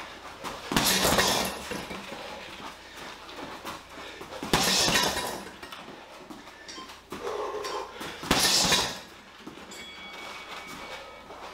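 Boxing gloves hitting a Leone heavy punching bag in three quick punch combinations, about four seconds apart.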